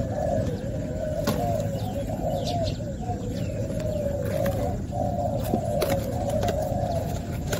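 Spotted doves cooing, several calls overlapping without a break, with a few sharp clicks from the birds and cardboard box being handled.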